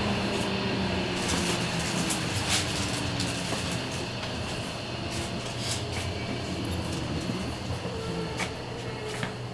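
Running noise inside a Tokyo Metro 07 series subway car as it nears a station: steady wheel and track rumble with a faint low electric hum from the Mitsubishi permanent-magnet-motor inverter drive, and occasional sharp clicks.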